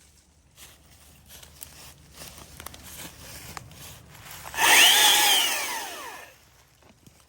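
Stihl MSA 300 cordless chainsaw's electric motor revved briefly: a whine climbs quickly to a high pitch, then winds down over about a second and a half. Faint clicks and rustling come before it.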